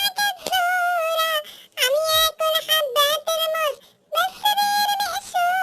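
A very high-pitched voice singing a children's song in short held phrases, with brief pauses near the middle and about four seconds in.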